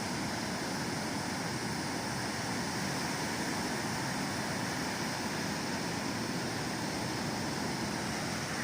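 Ocean surf at a beach: a steady, even rushing noise with no single wave standing out.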